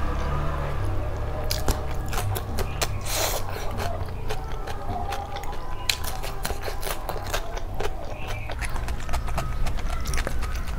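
Close-miked crunching and chewing of a raw cucumber slice: many crisp, irregular clicks and snaps as it is bitten and chewed, over a steady low hum.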